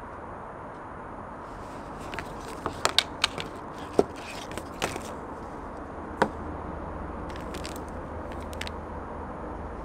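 Handling of an instant milk tea cup: a series of sharp clicks and knocks as the plastic lid comes off and the paper cup is set down upside down on the table with the packets inside, then a few lighter crinkles of a foil sachet near the end. A steady outdoor background hum runs underneath.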